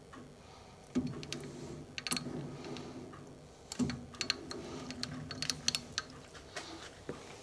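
Metal lathe worked by hand while a chamfer tool scribes an index line: scattered sharp metallic clicks and ticks, with a low hum that starts about a second in and again near four seconds in.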